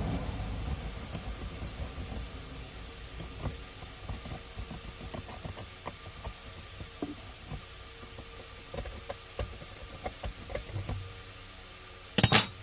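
Light scraping and scratching of a small tool across the solder side of a home theater amplifier circuit board, with irregular small ticks. The tool is cleaning between the solder joints so they cannot touch and short out. A short, loud scratchy burst comes near the end.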